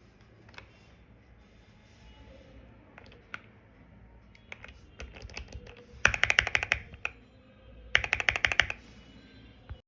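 Monka 3087 Pro V2 mechanical keyboard with Sea Salt tactile switches being typed on: a few scattered single keystrokes, then two quick bursts of rapid typing about two seconds apart, which are the loudest part.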